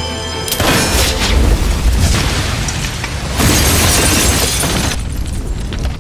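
Action-film explosion: a loud blast with a deep rumble and shattering debris about half a second in, then a second, louder surge of blast noise about three and a half seconds in, fading before the end.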